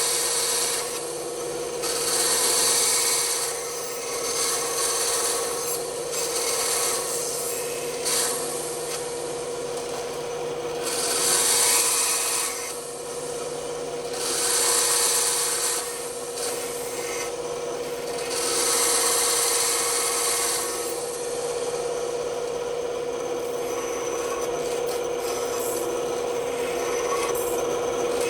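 Bandsaw running with a steady hum, its blade cutting wood in about six short passes of one to two seconds each, each cut adding a hiss over the hum.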